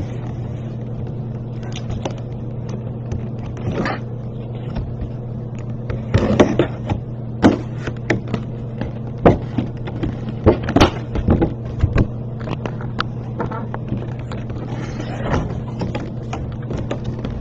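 A cardboard box being handled and opened by hand: scattered taps, scrapes and rustles of cardboard, thickest in the middle, over a steady low electrical hum.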